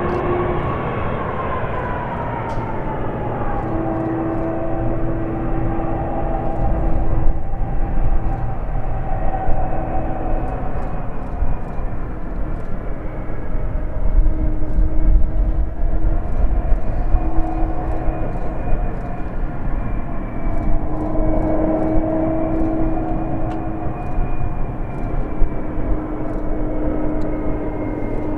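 Boeing 767's jet engines at taxi power: a steady whine with several slightly wavering tones over a low rumble.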